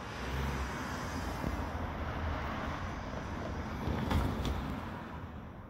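Street traffic noise from a car running by on the road, easing off near the end, with two short knocks about four seconds in.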